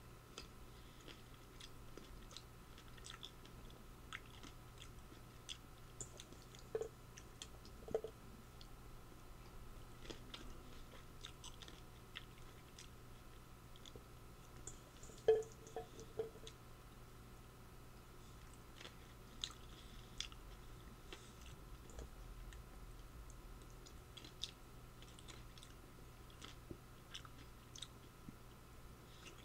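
A person chewing food close to the microphone: faint mouth clicks throughout, with a few louder smacks twice early on and again about halfway.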